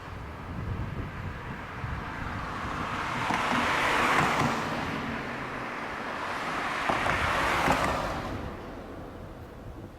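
Two vehicles passing one after the other, each a rush of noise that swells and fades, the first peaking about four seconds in and the second about three and a half seconds later.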